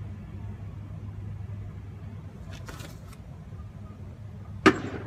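A steady low rumble of outdoor background noise, then a single sharp, loud thump near the end.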